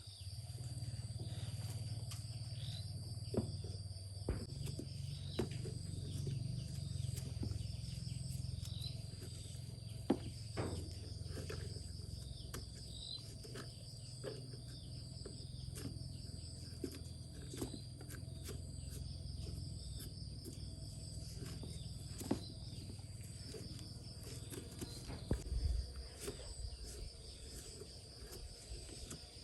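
Steady high-pitched insect drone over a low hum, with scattered light clicks and taps. The hum stops near the end.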